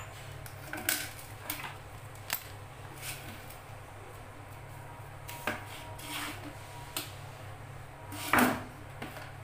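Scattered light clicks and knocks of a homemade hacksaw frame made from PVC water pipe and fittings being handled, its blade set against a PVC pipe. A louder, longer scrape comes a little over eight seconds in.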